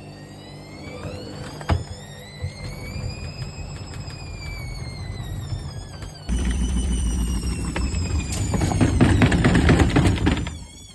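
Hoover washer dryer on a fast spin, its motor whining and gliding up and down in pitch. About six seconds in, a loud rumble starts suddenly, then turns into rapid banging as the unbalanced drum shakes the machine about. It cuts off sharply just before the end.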